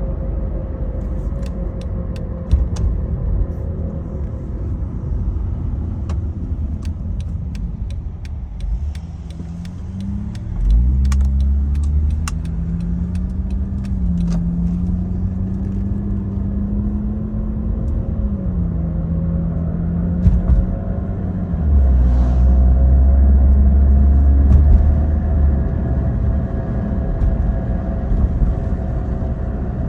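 A 2009 Acura TL SH-AWD on the move: steady road rumble with a whirring tone that rises and falls in pitch. A heavy low drone swells twice, briefly about 11 s in and again for a few seconds past the 20 s mark. This is the vibration and whirring noise the car is being recorded for.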